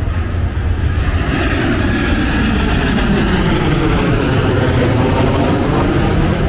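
Airplane flying low overhead: a loud rushing engine noise that swells over the first couple of seconds and then holds, with a slowly shifting whooshing tone.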